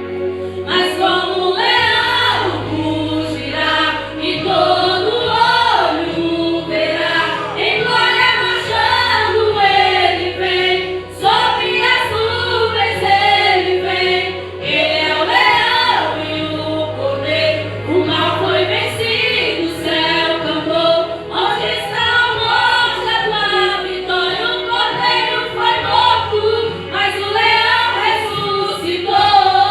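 Christian gospel song: sung vocal phrases with choir-like backing voices over sustained keyboard and bass notes.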